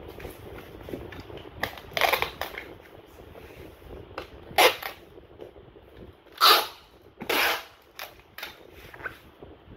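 Packing tape pulled off a handheld tape dispenser in short ripping bursts, the sharpest about four and a half and six and a half seconds in and a longer pull about seven seconds in, over the rustle of polyethylene foam sheet being wrapped and pressed down.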